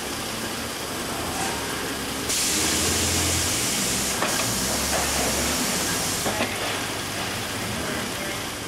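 Steady factory machinery noise from a carton pusher on a beer-carton palletising line. About two seconds in, a loud hiss of air starts with a low hum under it, and it dies away a few seconds later with a couple of light clacks, as the pneumatic pusher shoves a half-layer of four cartons across to the next table.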